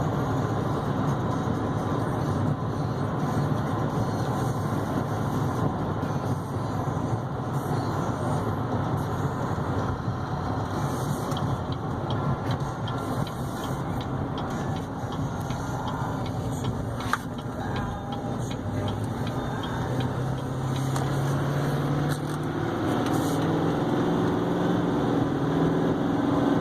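2015 GMC Sierra 3500 HD's 6.6-litre Duramax diesel V8 running while driving, heard with road noise from inside the cab. From about three-quarters of the way through, the engine note stands out more clearly and changes pitch in steps.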